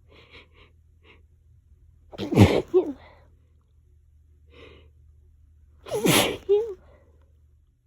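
A person sneezing twice, about three and a half seconds apart, during an allergy sneezing fit. Each sneeze is a loud explosive blast with a voiced tail, and softer breaths come between them.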